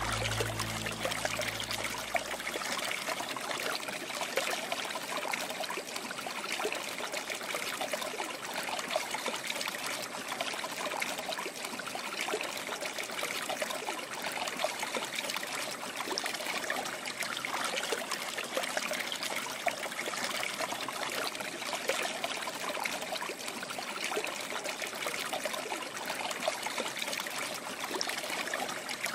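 Steady trickling of running water, like a small stream, with the tail of low-pitched music fading out in the first couple of seconds.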